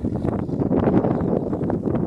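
Wind buffeting the microphone: a steady, gusty noise that covers everything else.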